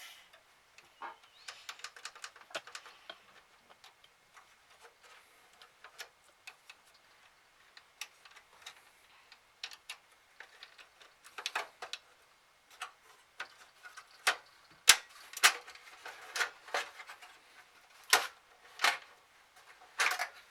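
Irregular small clicks and taps of plastic and metal parts being handled while an Xbox 360 is taken apart. They are sparse at first and grow louder and more frequent in the second half.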